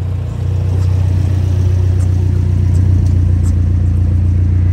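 2015 Fiat 500 Abarth's turbocharged 1.4-litre four-cylinder engine running steadily with the car standing still, a low even exhaust drone that grows slightly louder about half a second in.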